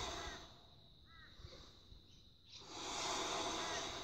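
A man breathing out deeply through pursed lips, twice, each a long rush of air: the first fades out about half a second in, the second starts about two and a half seconds in.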